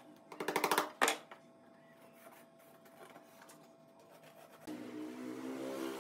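A fast rattling run of clicks lasting about half a second, then a single sharp knock. Music with held notes comes in near the end.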